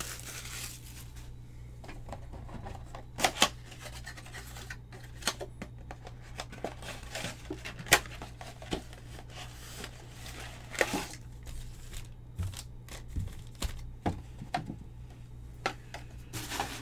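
A cardboard trading-card box and its plastic-wrapped packs being opened and handled: irregular crinkling, tearing and sharp taps, the loudest about 3, 8 and 11 seconds in, over a steady low hum.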